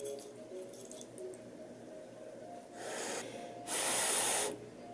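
A person slurping spaghetti: a short slurp about three seconds in, then a longer, louder one lasting most of a second.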